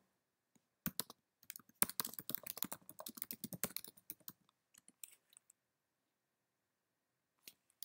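Typing on a computer keyboard: a quick run of key clicks for about three and a half seconds, followed by a few scattered keystrokes.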